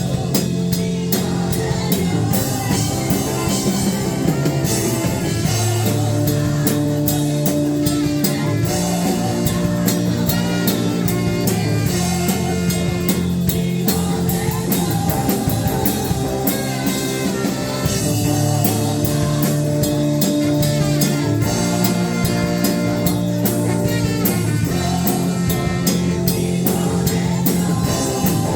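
Praise-and-worship band music with a drum kit keeping a steady beat under sustained instrumental chords and a bass line.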